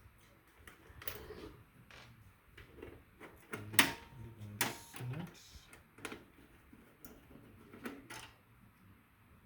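Scattered clicks and knocks of computer parts being handled inside a desktop case while a drive is being disconnected and freed, the sharpest click about four seconds in.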